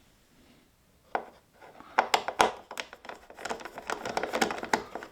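A run of sharp clicks and light clatter of small screws and a screwdriver being handled and set down on a hard surface, starting about a second in.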